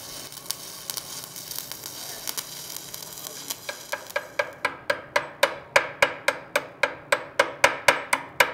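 Shielded metal arc welding with a 1/8-inch copper-nickel covered electrode on copper-nickel plate, the arc crackling and sizzling steadily. About four seconds in, a chipping hammer starts striking the weld bead to knock off slag, about four sharp ringing strikes a second.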